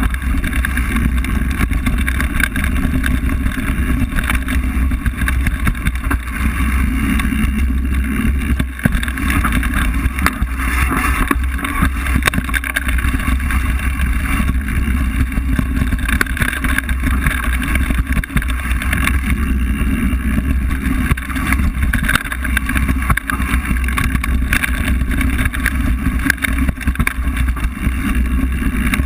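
Wind buffeting the microphone of a camera riding on a mountain bike as it rolls fast down a rough dirt trail, with tyre rumble and frequent clicks and rattles from the bike over bumps.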